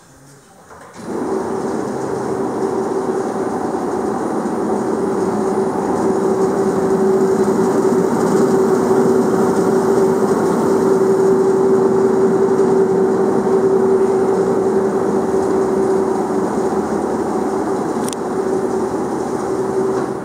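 Rondo Compas HD dough sheeter running empty: its drive turns the conveyor belts and sheeting rollers with a steady whine over a rumble. It starts about a second in and stops just before the end.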